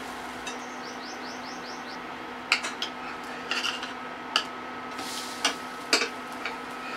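A metal spatula clicks and scrapes against a marble-coated aluminium nonstick tawa as pancakes are turned, with several sharp clicks from about two and a half seconds in. Under it runs a steady hiss and a faint low hum. About a second in there is a quick run of five short high chirps.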